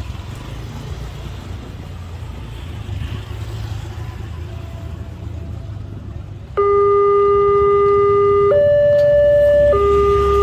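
Railway level-crossing warning alarm: an electronic two-tone alarm starts abruptly about two-thirds of the way in and alternates between a low and a higher tone every second or two, the signal that a train is approaching and the barrier is about to close. Before it there is only a low background rumble.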